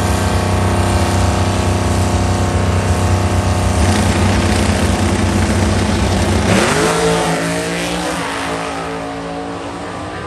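Top Fuel dragster's supercharged nitromethane V8 running loud and steady. About six and a half seconds in, it revs up sharply in pitch, then holds a higher note that slowly fades.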